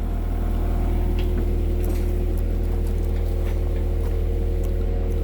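Komatsu PC120-6 excavator's diesel engine running steadily as the machine works, a constant low hum with a steady pitched drone over it and a few faint clicks.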